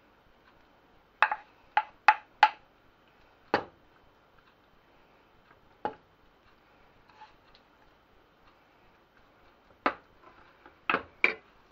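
Wooden spoon knocking against a frying pan and a ceramic baking dish while spooning vegetable filling: sharp clacks, four in quick succession about a second in, a couple more scattered, then three close together near the end.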